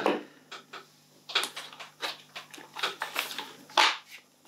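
Handling noise from a Northeast FAMAS F1 gas-blowback airsoft rifle being turned and lifted upright: a series of separate clicks and knocks from its parts, the loudest near the end.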